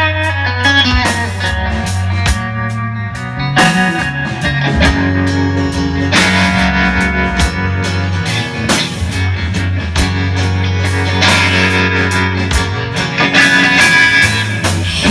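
Live rock band playing an instrumental passage between sung verses: guitar melody over bass and drum kit.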